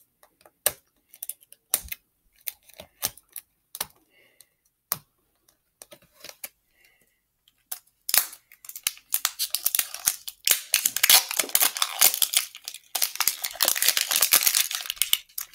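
Plastic toy packaging handled and opened by hand: scattered clicks and taps at first, then from about halfway in a steady crinkling and tearing of a plastic wrapper.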